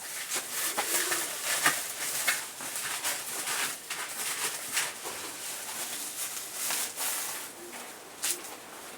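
Dry poultry feed grains being poured into a plastic water-bottle feeder: a steady rattling hiss of grain against plastic, with many small clicks.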